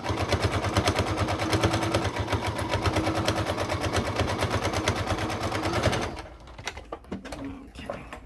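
Electric household sewing machine running fast, sewing a long basting stitch along a fabric edge with rapid, even needle strokes. It stops about six seconds in, followed by a few light clicks as the work is handled.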